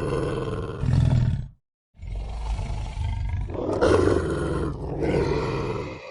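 Werewolf sound effect: a rough, growling creature roar that cuts off about a second and a half in, then after a brief gap a second, longer roar that is loudest about four seconds in and fades near the end.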